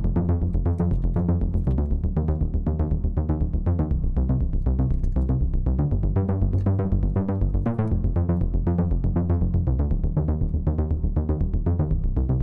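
Background music: an electronic track with a steady, regular beat.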